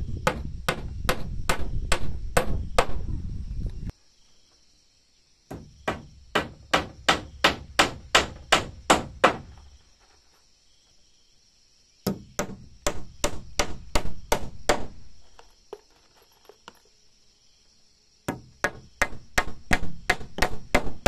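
Claw hammer driving nails into wooden floor-frame timbers: four runs of sharp, quick blows, about two to three a second, with short pauses between runs.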